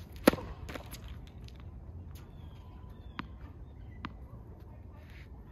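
A tennis racket strikes the ball on a serve, one sharp pop about a third of a second in, with fainter knocks soon after. Later come two soft ball bounces on the hard court, about three and four seconds in.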